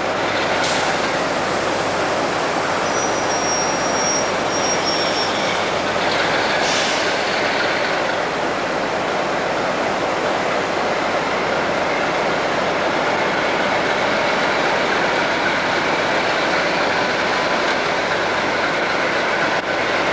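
Class 47 diesel-electric locomotive, with its twelve-cylinder Sulzer engine, running steadily as it draws slowly out along the platform, and a brief thin high squeal about three seconds in.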